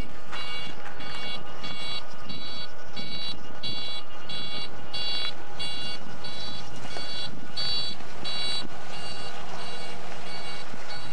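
Railroad warning bell ringing in rapid, even strokes, weakening near the end. A low steady hum comes in after about eight seconds.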